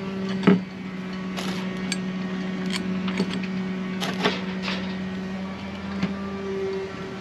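Short metallic clicks and knocks, a handful spread through, as parts of an SD20 sail drive are handled and lined up for reassembly, over a steady low hum.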